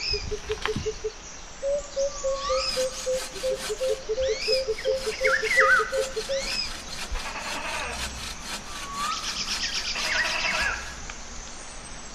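Bow saw cutting through a log in quick, regular strokes, while birds call: rising whistled notes and, in the first half, a low call repeated evenly many times.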